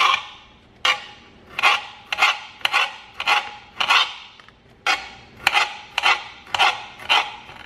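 Kitchen knife slicing small tomatoes, each cut ending in a sharp tap of the blade on the cutting board: about a dozen taps at an uneven pace of one or two a second.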